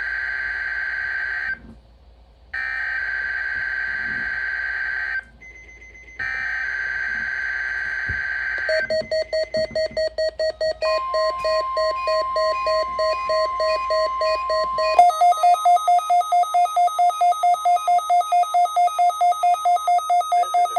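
NOAA Weather Radio emergency alert for a test tornado warning. The SAME digital header plays first: three harsh data bursts, each about two and a half seconds, with short gaps between them. Then an alarm beeps rapidly, about twice a second, with the steady 1050 Hz warning tone under it for a few seconds; about 15 seconds in the beeping turns higher-pitched and louder.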